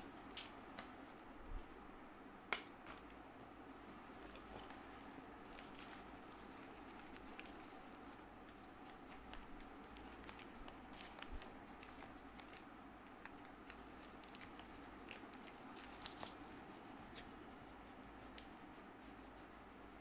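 Faint clicks and rustling of hands handling a new pair of stretch fabric trekking gloves and their tags, over a steady low background hum. One sharper click about two and a half seconds in.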